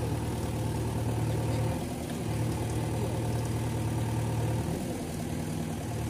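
JCB 3DX backhoe loader's diesel engine running steadily as the backhoe arm digs into loose soil. Its low hum dips briefly twice, about two seconds in and again about five seconds in.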